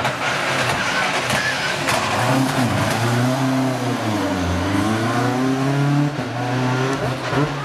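Classic Ford Escort rally car's engine revving hard through a hairpin. Its pitch drops to a low point about halfway through as the car slows for the corner, then climbs again as it accelerates away.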